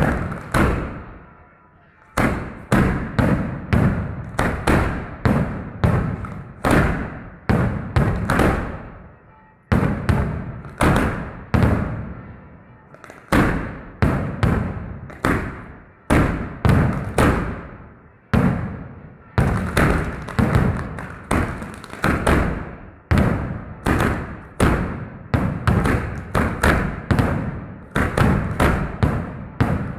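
Firecrackers going off in quick, irregular succession, several loud bangs a second, each trailing off, with a few short pauses between runs.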